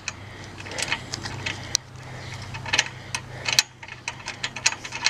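Small, irregular metallic clicks and ticks as a lock washer and nut are handled and fitted onto a brass bolt by hand, over a steady low hum.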